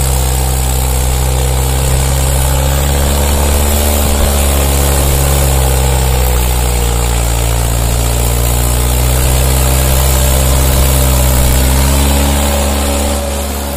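Mahindra tractor's diesel engine running under heavy load while hauling a loaded trailer. The note is steady, sagging slightly in pitch partway through and then recovering.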